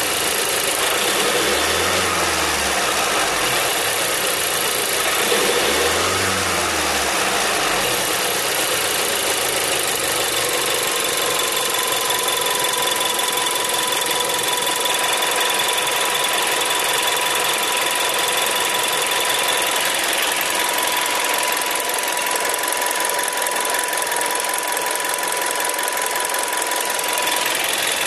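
Seat Leon TSI 140 turbocharged petrol engine running at operating temperature. It rises and falls in pitch twice in the first several seconds, then settles to a steady idle with a thin constant whine over it.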